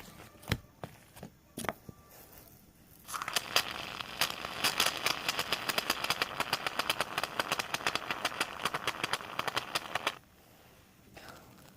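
Slime being squished and stretched in the hands: a few scattered clicks, then about a second in after that a dense run of crackling and popping for about seven seconds, stopping near the end.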